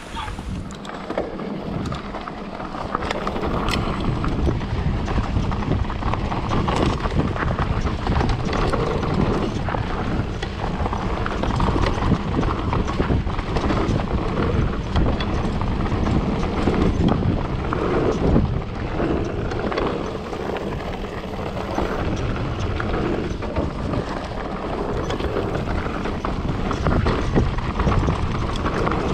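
Mountain bike, a Specialized Kenevo e-MTB, descending a rough trail: tyres rumbling over rocks and roots, with the frame and chain rattling in a steady stream of knocks. Wind buffets the microphone.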